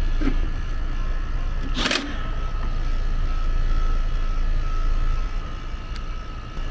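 Rooftop air-conditioning condenser unit running, its compressor and condenser fan making a steady hum with a faint high whine, the system running strong on a newly replaced contactor. A short burst of handling noise about two seconds in.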